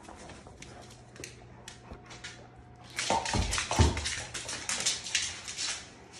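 An Afghan hound running on a hardwood floor after its Kong toy: claws clicking and scrabbling on the boards, then about three seconds in a loud flurry of scrabbling with two heavy thuds about half a second apart.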